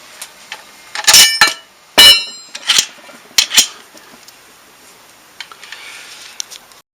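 Metal parts being handled and set down: a handful of sharp clanks and clinks over a few seconds, the loudest about two seconds in ringing briefly, then a few faint ticks.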